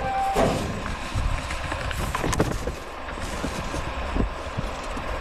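Steady background noise with a low rumble and a few faint clicks, and a brief tone right at the start.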